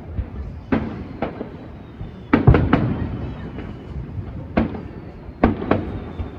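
Aerial firework shells bursting: a string of about eight sharp booms, some in quick pairs, each trailing off in a short rumble.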